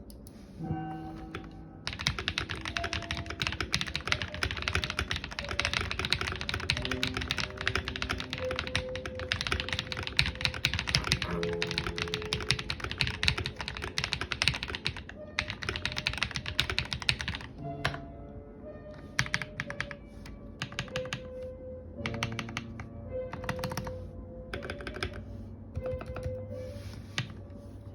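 Typing on a mechanical keyboard with lubed Akko Rose Red linear switches: fast continuous keystrokes for about fifteen seconds, then shorter bursts of typing with brief pauses. Background music plays underneath.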